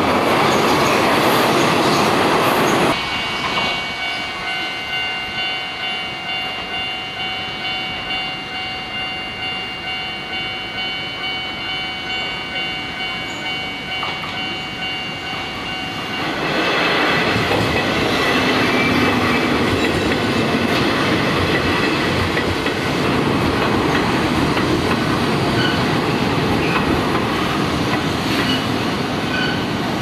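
A Hanshin red-bodied express train passes close by with loud wheel and track noise. This cuts to a Japanese level-crossing warning bell ringing in a steady, even repeating pattern. About 16 seconds in, another Hanshin train arrives and runs past, its wheels rumbling and clattering loudly over the track while the bell carries on faintly beneath.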